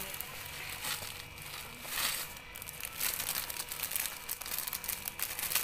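Crinkling and crackling from dry misua noodles and their packet being handled and broken over the pot, with louder bursts about two and three seconds in.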